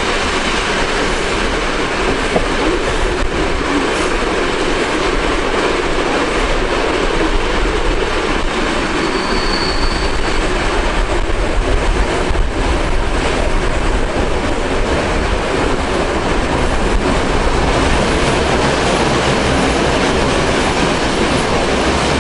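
Flåm Railway train running downhill, heard at an open carriage window: a loud, steady rumble and rattle of wheels on the rails, with a short high squeal about nine seconds in.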